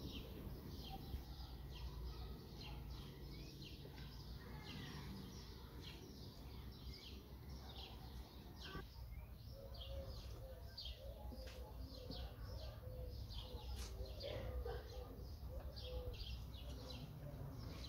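Birds chirping faintly and repeatedly over a low, steady background rumble.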